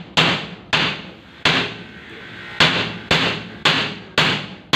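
Hand hammer striking the window frame in a steady series of sharp blows, about two a second with a short pause in the middle, each blow ringing briefly.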